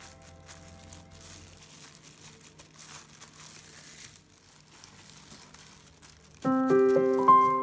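Faint crinkling of a plastic food glove and aluminium foil as a gloved hand presses crushed biscuit crumbs into a cake ring. About six seconds in, gentle piano music comes in and is the loudest sound.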